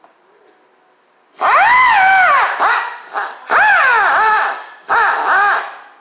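Grinder grinding on the Harley twin cam's seized pinion shaft in three bursts, each a high whine that rises and then falls in pitch over a hiss of metal grinding.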